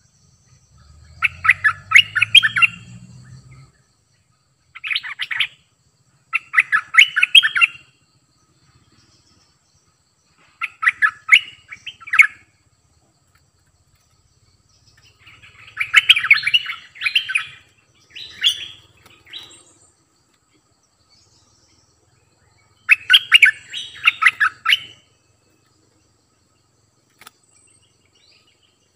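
A bulbul singing in short, rapid, bubbling phrases, about seven in all with pauses between them.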